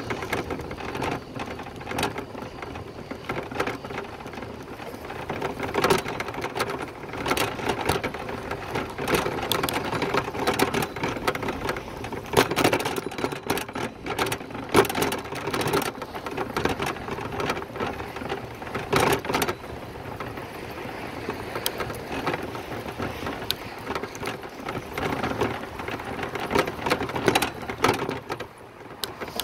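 Bicycle being ridden: a constant clatter of rattles and clicks over a steady hum, with louder jolts every few seconds.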